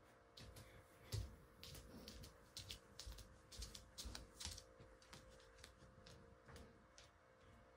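Faint, irregular light clicks and taps from household activity, two or three a second, over a faint steady hum.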